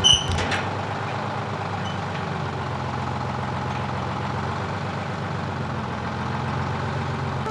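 Engine of a truck-mounted well-drilling rig running steadily, a low, even hum.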